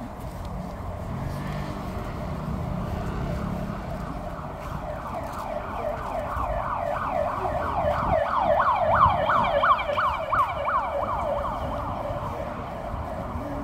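Emergency-vehicle siren in a rapid yelp: a quick series of falling wails, about four a second, growing louder through the middle and easing near the end.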